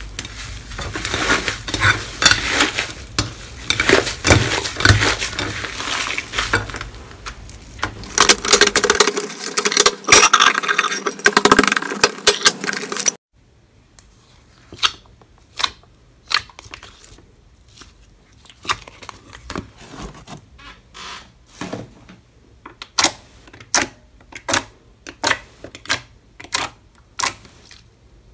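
Hands kneading and squishing a thick, fluffy slime, a dense run of sticky crackles and squelches. About halfway through this gives way to fingers pressing into clear slime, with separate sharp clicking pops, about one or two a second.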